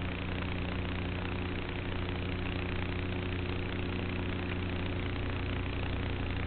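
The brushless electric motor and propeller of an E-Flite Apprentice S RC plane humming steadily in flight, picked up by its onboard action camera over a constant rush of noise.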